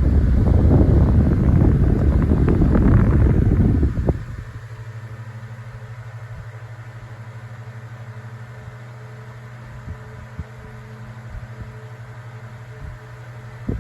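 Vintage 9-inch Galaxy electric fan running. For about four seconds its airstream rushes over the microphone, then the rush cuts off abruptly, leaving the motor's steady electrical hum.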